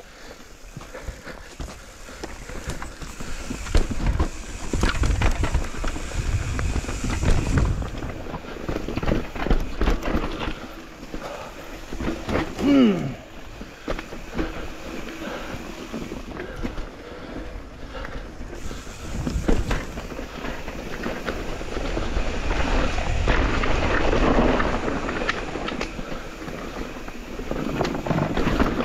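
Mountain e-bike ridden fast over rough trail: tyres rumbling and crunching over dirt and roots, the bike rattling and jolting over bumps, with wind buffeting the microphone. A short sound that falls in pitch comes about halfway through.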